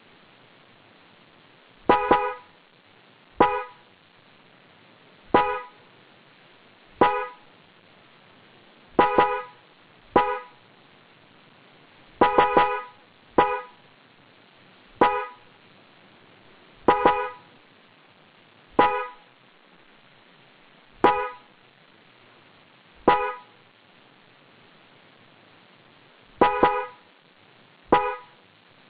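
Genuine Denso car horn of a Lexus CT200h sounding in short honks, about fifteen in all. Some come as quick doubles, with gaps of a second or two between them.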